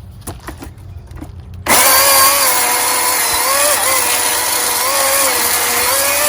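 Milwaukee M18 cordless electric chainsaw starting up about a second and a half in and cutting wood with a steady high motor whine, its pitch dipping briefly as the chain bites. It is cutting cleanly on a new chain, with no smoke.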